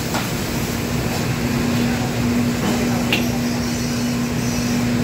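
Steady roar of commercial wok burners and the kitchen exhaust hood, with a constant hum under it and a few light clicks.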